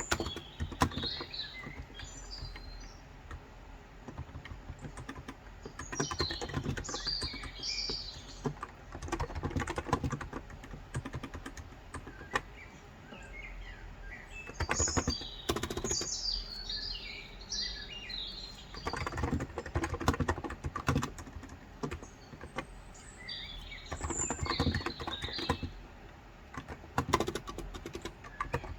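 Typing in bursts on a Cox Endeavor electro-capacitive (Topre-style) tenkeyless keyboard with 35 g switches, runs of quick key strokes with short pauses between them. Small birds chirp and twitter in short high phrases several times over the typing.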